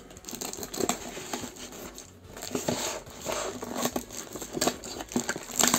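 Toy packaging being handled and opened by hand: plastic and paper crinkling and rustling with irregular clicks and taps, loudest near the end.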